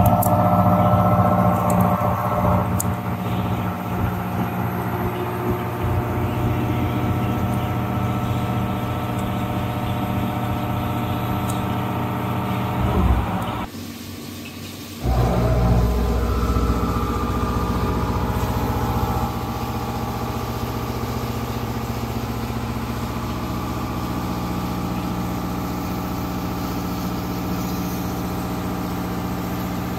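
CNC vertical machining centre milling a steel punch: the spindle and milling cutter run steadily with a hum of several fixed tones. The sound drops away for about a second midway, then returns louder and settles.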